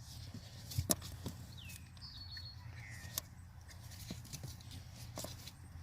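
A few faint clicks and knocks of the car seat and its strap being handled, over a low steady hum, with a bird chirping briefly about two seconds in.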